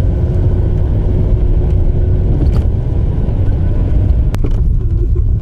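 Steady low rumble of a car's engine and tyres on the road, heard from inside the moving car. A single sharp click comes about four seconds in.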